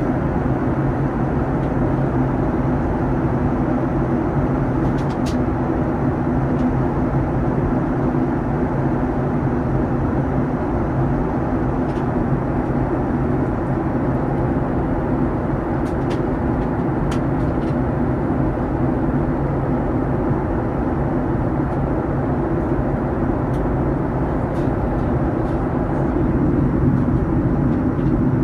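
Steady in-flight cabin drone of a Boeing 737-900ER: its CFM56-7B engines and the rush of air past the fuselage, with a low hum under it and a few faint clicks. It swells slightly near the end.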